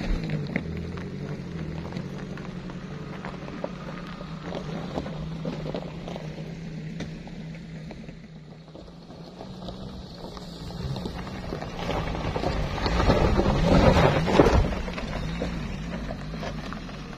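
Daihatsu Gran Max campervan's engine running as the van drives off along a dirt track, fading away. About twelve seconds in, the engine works hard and the tyres scrabble on loose dirt and stones as it climbs a steep slope. This is loudest around fourteen seconds in, then eases.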